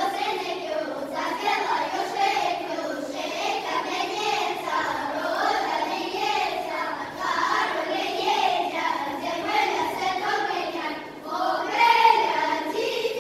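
Folklore ensemble of mostly children's voices singing a folk song together. The singing dips briefly about eleven seconds in, then comes back louder.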